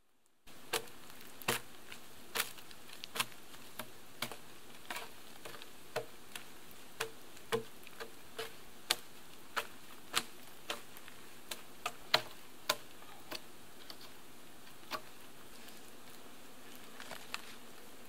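Sharp, irregular wooden cracks and knocks, roughly one or two a second, starting about half a second in and thinning out near the end, over a steady low background.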